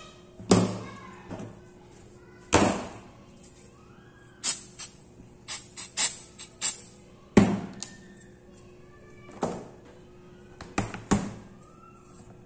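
Canned compressed air fired in several short, sharp blasts in quick succession around the middle, to clean a small laptop circuit board. Loud thumps from handling, about half a second in, two and a half seconds in and seven and a half seconds in, plus a few lighter knocks near the end.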